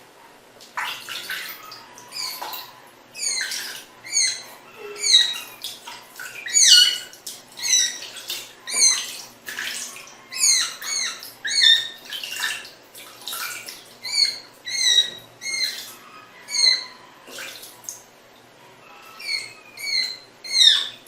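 A small animal's repeated high-pitched chirps, each sliding downward in pitch, coming one or two a second with a short lull late on.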